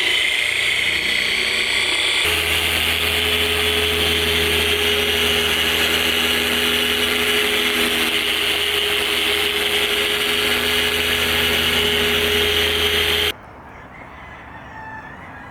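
Electric car polisher with a 5-inch cutting pad running steadily, buffing compound into paint to take out paint transfer. Its sound changes about two seconds in, when a low hum and a steady tone join it, and it stops suddenly near the end.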